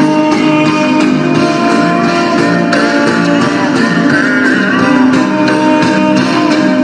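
Background music led by guitar, with plucked notes over a steady low pattern.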